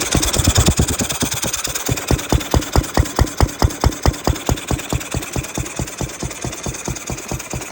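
Ruston 6PS stationary petrol engine running steadily after a belt start, with an even beat of about five to six firing strokes a second.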